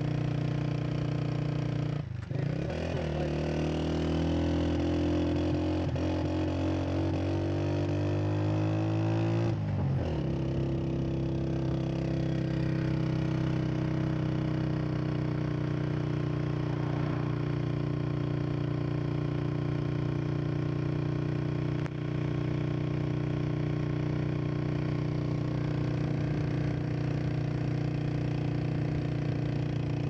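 Motorcycle engine running under way, heard from on the bike. After a brief dip about two seconds in, the engine note rises steadily as it accelerates, drops back about ten seconds in as it shifts gear, then holds a steady cruising note.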